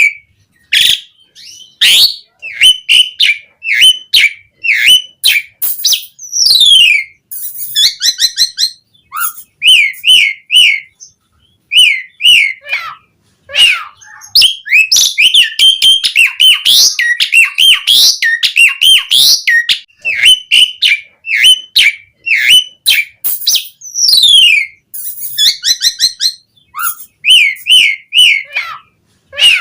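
Asian pied starling (jalak suren) singing a loud, varied song: whistles that swing up and down in pitch, downward-sliding notes, fast trills and sharp clicks, one phrase after another with short gaps.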